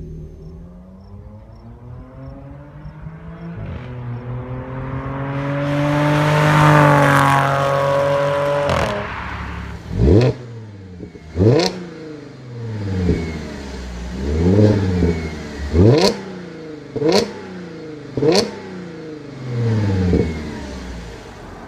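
Audi B8.5 S4's supercharged 3.0-litre V6 through an AWE Touring exhaust, its note climbing to a long, loud rev and then easing off. Then another S4 with an X-pipe exhaust is revved about eight times in quick succession, each rev rising sharply and dropping straight back.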